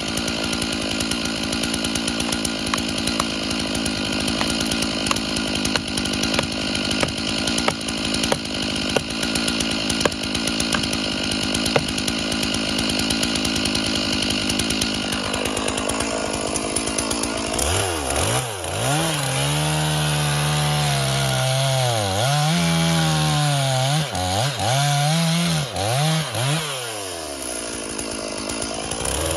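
Chainsaw cutting into a thick tree trunk, its engine running hard and steady. In the second half the engine pitch dips and recovers again and again as the revs are let down and brought back up.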